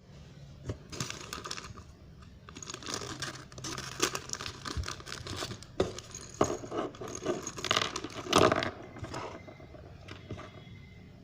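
Small plastic toy bricks and figures clicking and clinking while their packaging is handled, with crinkling and tearing of plastic wrapping. Irregular rustles and sharp clicks throughout, the loudest rustle about eight seconds in.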